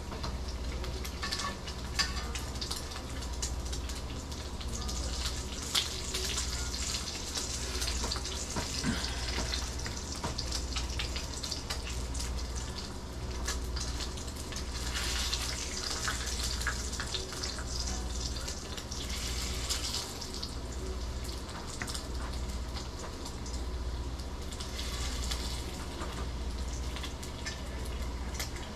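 Bacon sizzling in a cast iron skillet, a steady crackle with many sharp little pops, over a low pulsing hum.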